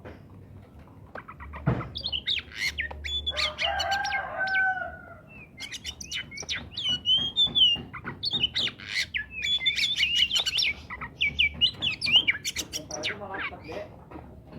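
Oriental magpie-robin singing loudly: a fast run of varied whistles, sweeps and chirps that starts about two seconds in. A lower, drawn-out call sounds briefly about four seconds in.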